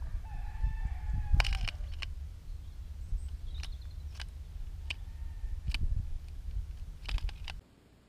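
Small birds feeding on a bird table: sharp taps come every second or so, with a cluster about a second and a half in and another near the end, over a low wind rumble on the microphone. About a second in, one drawn-out call a little over a second long sounds, slightly falling in pitch. All sound cuts off suddenly just before the end.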